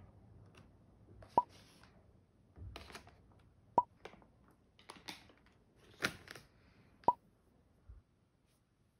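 Three short 'blop' pop sound effects, about a second and a half in, near four seconds and about seven seconds in. Between them come quieter rustling and knocking handling sounds, a milk carton and a plastic punnet of strawberries being set down.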